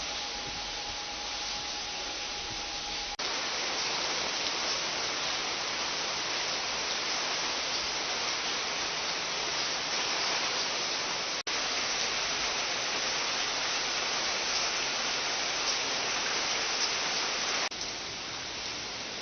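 Steady hiss of pouring water. It jumps louder about three seconds in, drops out for an instant near the middle and falls back quieter near the end, where separate clips are cut together. A faint steady tone sits under the first three seconds.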